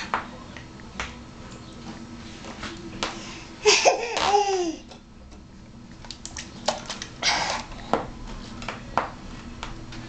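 A young child's short vocal sound about four seconds in, its pitch rising and falling, amid light clicks and knocks, with a brief noisy burst near seven seconds.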